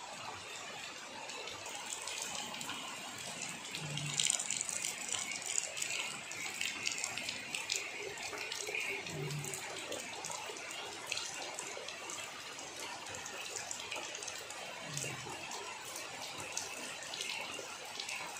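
Steady rain falling on trees and leaves: an even hiss with many small ticks of drops. A short low sound recurs three times, about five seconds apart.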